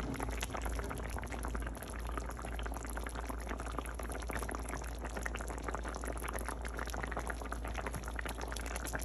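Thin fish curry simmering in a pot: a steady, dense bubbling with many small pops.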